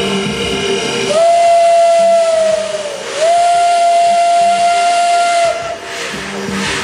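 Steam locomotive whistle blown in two long blasts over a hiss of steam. The first blast starts about a second in, sags in pitch and breaks briefly. The second, longer blast stops cleanly just before the end.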